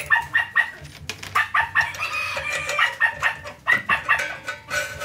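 Chickens clucking in quick, repeated short calls, with one longer drawn-out call in the middle.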